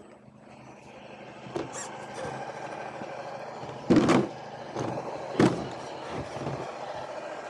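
Carisma SCA-1E scale RC crawler driving, its electric motor and gearbox whining steadily from about a second and a half in. Two loud knocks come about four and five and a half seconds in.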